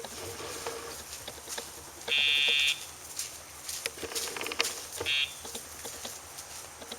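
Buzzer of the e-collar's sound box, which sounds each time the Dogtra collar's pager vibrates: a loud buzz of just over half a second about two seconds in, and a short one about five seconds in. Each buzz marks a vibration cue sent to the dog when the leash goes tight.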